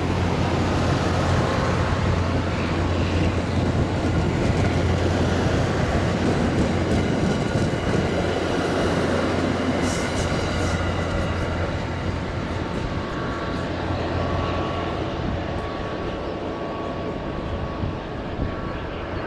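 MBTA commuter rail train of bilevel coaches passing close by: a steady rumble of wheels on the rails with a low hum, fading as the train draws away.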